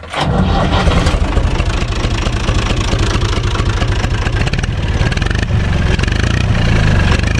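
Tractor's four-cylinder diesel engine comes on suddenly at the start and then runs at a steady idle with an even, rapid exhaust beat.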